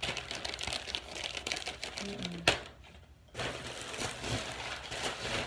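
Plastic diaper packaging crinkling and rustling as it is handled, a dense run of small ticks. A sharp click about two and a half seconds in, the loudest sound, is followed by a brief lull before the rustling resumes.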